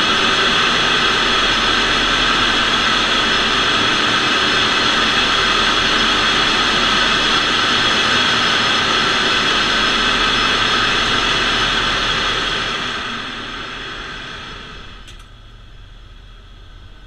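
Loud, steady din of a ship's engine room machinery, with several steady whining tones over a low hum. About thirteen seconds in it falls away to a much quieter hum, with a brief click near the end.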